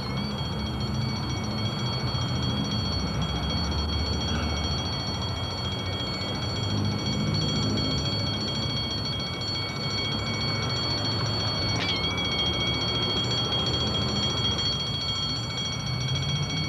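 Low rumble of street traffic, cars and double-decker buses passing, under a steady high whine of several evenly spaced pitches that jumps briefly about twelve seconds in, the kind of recording noise left by an early home video camera.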